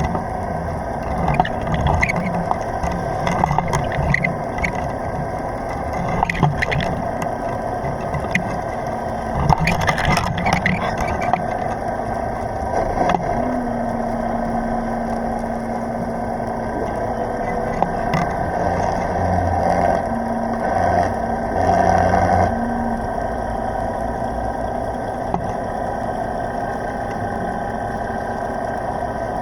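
A boat's engine idling, heard underwater as a steady hum with a low rumble, with scattered knocks and scrapes against the camera in the first half and a steady held tone partway through.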